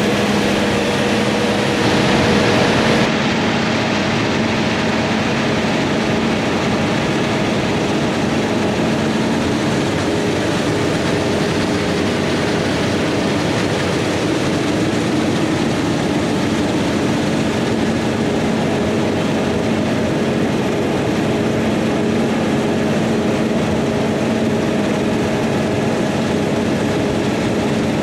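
Heavy farm machinery running steadily, a big diesel engine with a constant hum and drone. The sound changes character about three seconds in.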